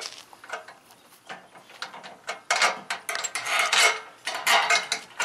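Steel bolt and washers clinking and scraping against the aluminium gazebo frame as the bolt is fitted through the beam: a few light clicks at first, then a denser run of metallic clatter in the second half.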